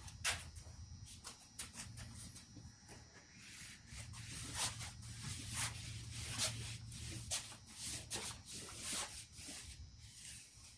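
A paper towel damp with degreaser being rubbed and wiped over the car's cargo-area surfaces: an irregular run of short scuffs and rustles. A steady low hum runs underneath.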